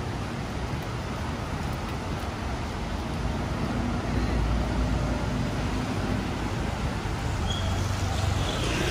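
Steady city road traffic: a continuous wash of passing vehicles, with a low engine rumble growing louder about four seconds in.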